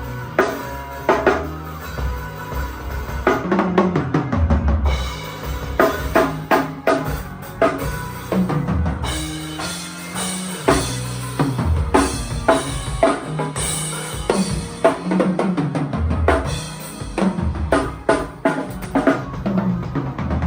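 Drum kit played hard, with kick drum, snare and rimshot hits over sustained low bass notes: a live band playing through a sound check.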